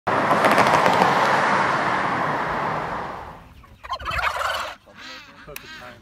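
A large flock of farm poultry calling together in a dense din that fades away over about three seconds, then a short louder patch and a few single calls near the end.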